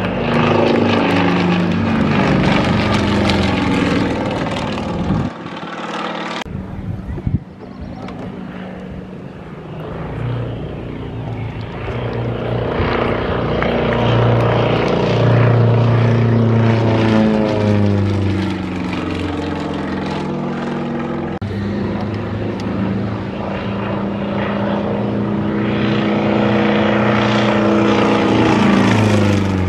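Propeller-driven aerobatic plane flying a smoke-trailing display, its engine note repeatedly rising and falling in pitch as it climbs, dives and passes, with a brief lull about five seconds in.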